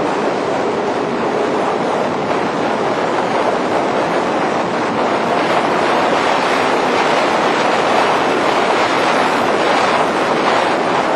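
Steady rushing road noise of cars driving through a road tunnel: engines and tyres on the road surface blending into one continuous roar, a little louder in the second half.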